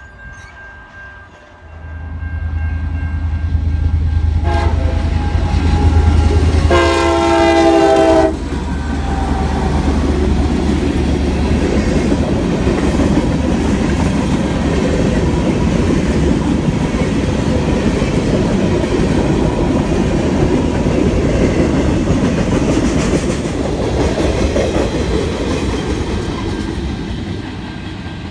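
Crossing signal bell ringing as a diesel-hauled freight train approaches with a deep engine rumble. The locomotive horn gives a short blast about four seconds in and a longer one of about a second and a half near seven seconds. Then the freight cars roll past with steady clattering wheel and rail noise.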